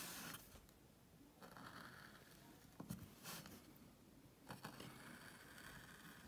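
Faint short scrapes of a woodcarving gouge slicing into wood, a few separate strokes with a small click about three seconds in.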